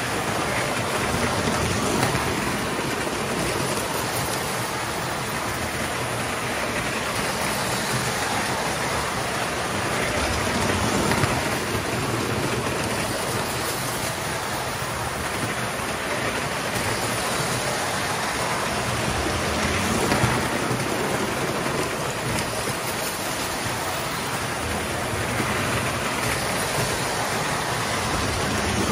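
Several toy model trains, led by steam locomotives, running on metal track: a steady rumbling clatter of wheels and motors that swells every so often as a train passes close by.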